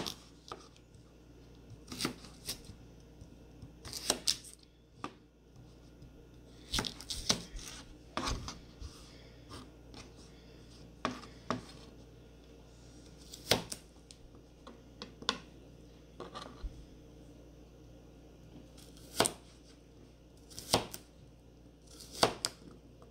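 Kitchen knife cutting an English cucumber on a plastic cutting board: sharp, irregular knocks of the blade meeting the board, one every second or two and sometimes two in quick succession.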